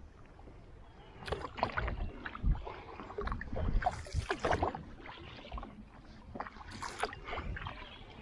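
Kayak paddling: water splashing from the paddle blades in irregular bursts, mostly in the first half and again briefly near the end, with a few low thuds.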